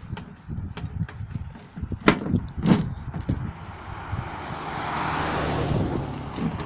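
A car passing on a snow-covered road, its tyre and engine noise swelling and fading over about two seconds in the second half. Before it come a few sharp knocks, two of them louder, about two seconds in and just under three seconds in.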